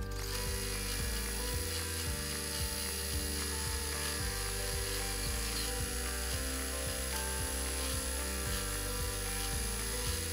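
Computerized embroidery machine stitching a tack-down line, its needle running steadily as the hoop moves the fabric under it.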